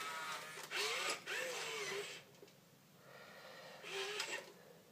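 WowWee Robosapien V2 toy robot's gear motors running in two short bursts as it moves its arms during its start-up self-diagnostic, the motor pitch rising and falling with each move.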